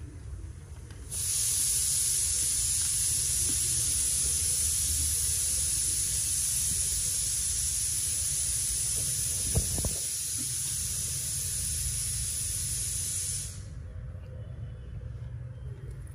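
A steady, high hiss that starts abruptly about a second in and cuts off suddenly a few seconds before the end.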